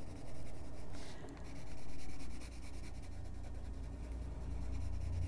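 Wax-based Prismacolor colored pencil scratching and rubbing on coloring-book paper as a leaf is shaded in green, over a steady low hum.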